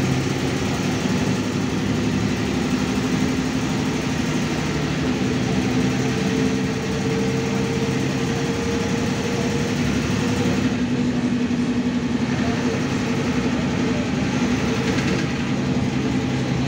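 Cabin sound of a MAN Lion's Classic SL 283 city bus under way: its diesel engine runs steadily under road and tyre noise. A higher, even tone joins about five seconds in and fades out around ten seconds.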